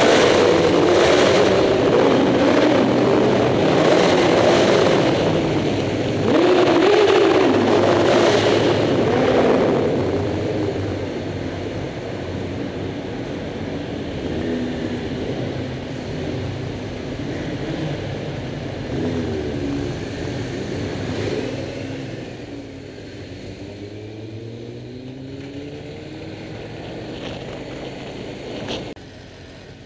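Motorcycle engines accelerating inside a stone tunnel, loud for the first ten seconds. Then the sound drops as the bikes ride on, with the engine pitch rising and falling several times.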